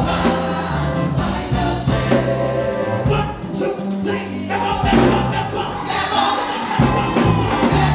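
Live gospel music: voices singing together over a band, with a moving bass line and drums.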